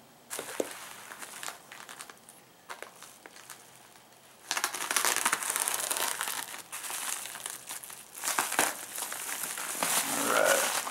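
A plastic Priority Mail mailer crinkling and rustling as it is sliced open with a small knife and pulled apart. Faint scratching at first, then much louder rustling from about four and a half seconds in.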